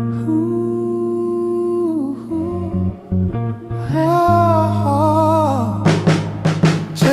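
Intro of a Motown-style soul song: a wordless humming vocal holds long notes, then wavers through a short run, over bass and guitar. A few sharp percussive hits come near the end.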